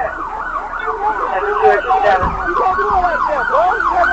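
Police car sirens in fast yelp mode, at least two overlapping, each a wail that rises and falls several times a second.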